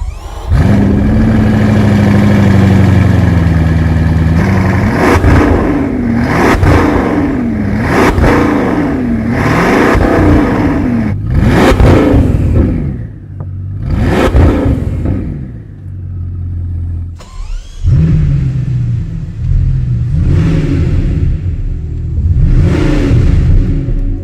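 Bugatti Chiron Sport Noire's 8.0-litre W16 engine firing up and settling, then being revved over and over in short blips, its pitch rising and falling about once a second. It starts up again loudly about two-thirds of the way through, followed by more blips.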